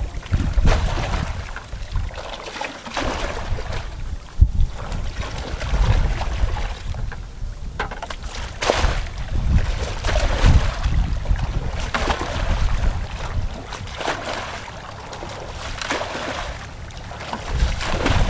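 Muddy water sloshing and splashing as a plastic bucket is scooped through a shallow paddy pool and tipped out onto the bank, over and over, with wind rumbling on the microphone.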